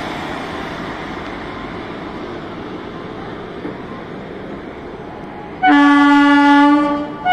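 Passenger train coaches rolling past on the rails, a steady rumble that slowly fades. Near the end, a loud electric-locomotive horn sounds once for just over a second and then cuts off.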